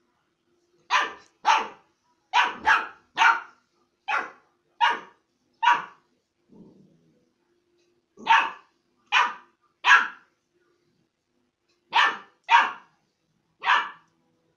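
A puppy barking: about fourteen short, sharp barks in quick clusters of two or three, with brief pauses between the clusters.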